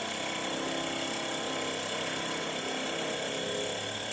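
Circulation pump of a Seoul Master Gas 21 wall-hung gas boiler humming steadily with an unpleasant noise. This is the sign that the pump's rotor may be catching on its stationary parts and seizing from time to time, letting the heat exchanger boil and tripping the safety thermostat's A4 error.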